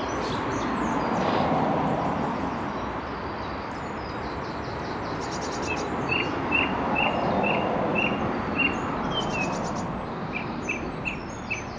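Water swishing around a wader's legs, swelling and easing as he pushes upstream through knee-deep river water. Over it, small birds sing from the banks; one repeats a short note about three times a second for a few seconds past the middle and again near the end.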